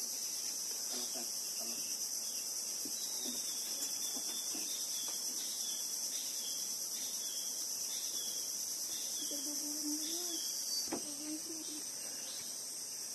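Steady, high-pitched chorus of insects shrilling, with faint voices under it and a single sharp click about eleven seconds in.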